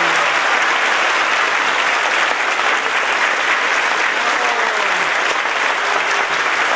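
Audience applauding steadily, dense clapping from a large crowd.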